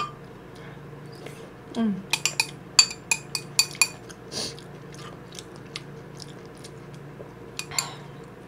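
A metal spoon clinks and scrapes against a ceramic bowl as stew and rice are scooped and eaten. The sound comes as a quick run of sharp clinks about two to four seconds in and a few more near the end, with chewing between and a short hum of the voice about two seconds in.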